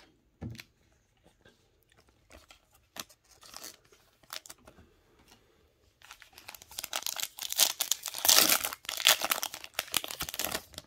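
Foil trading-card pack crinkling and being torn open, loud crackling from about six seconds in until near the end. Before that, faint scattered clicks of cards and packs being handled.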